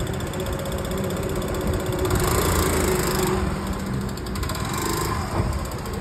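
A small engine idling steadily with a low hum, with a louder rush of noise about two to three seconds in.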